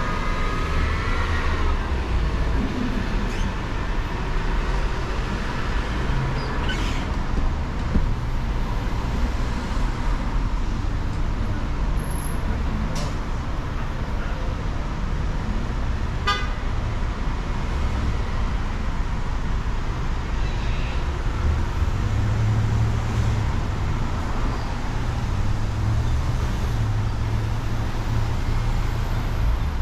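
Street traffic: cars and a bus running along the road, a steady low rumble of engines and tyres.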